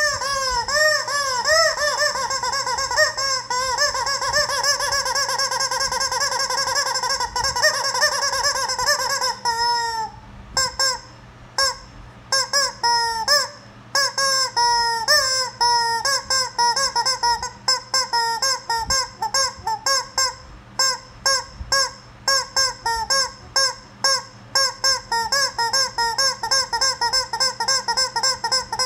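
Squeaky rubber chicken toy squeezed over and over, giving honking squawks. They run together rapidly for about the first ten seconds, then come as short separate squawks, about two or three a second.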